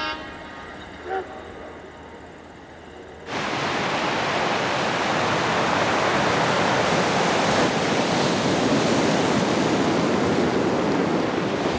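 Sea surf breaking and washing up a shingle beach: a loud, steady rush that starts suddenly about three seconds in, after a quiet stretch.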